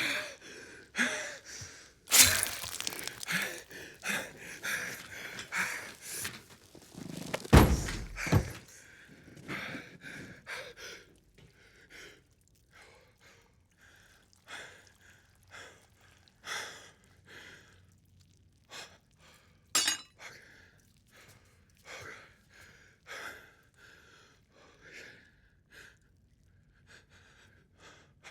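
Brawl sound effects: heavy thuds and crashes with things breaking and glass shattering. There is a big crash about two seconds in and the heaviest, deepest impact around seven to eight seconds in. After that comes a run of smaller hits and knocks with hard breaths between them.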